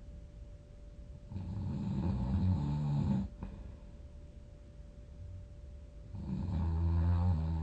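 A person snoring in deep sleep: two long, low rattling snores about five seconds apart, with quiet breathing between them.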